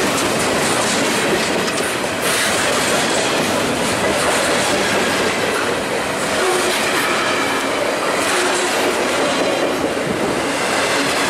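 Freight cars of a Canadian National train rolling past at close range: boxcars, centerbeam lumber flats and autoracks. Their steel wheels make a steady loud rumble and rush on the rail, with clacking over the rail joints.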